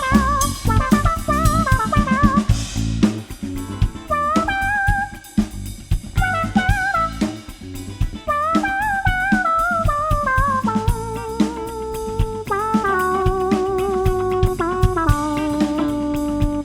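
A funk band playing live: a drum kit keeps the groove under a lead melody line with bending notes, which settles into long held notes stepping downward in the second half.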